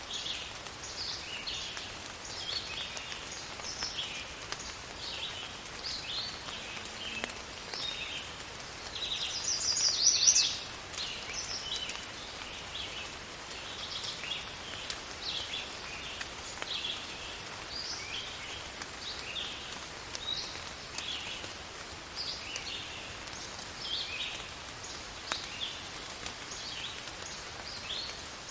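Steady rain falling, with a bird chirping over it in short, repeated calls. About nine seconds in, a louder call swells for over a second, then cuts off.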